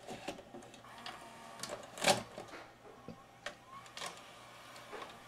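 Cassette loading mechanism of a Marantz MV8300 digital VHS deck taking in a VHS tape: a series of mechanical clicks and clunks, the loudest about two seconds in. The deck loads the tape normally.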